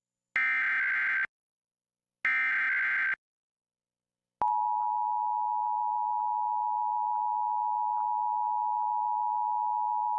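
Emergency Alert System SAME header bursts: two short blasts of shrill, buzzing digital data tones, each just under a second long. About a second later the steady two-tone EAS attention signal starts and holds, heralding a required monthly test alert.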